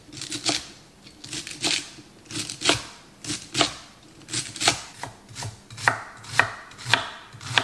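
Chef's knife chopping celery and then a red onion on a wooden cutting board: a steady run of sharp knocks as the blade strikes the board, about two a second.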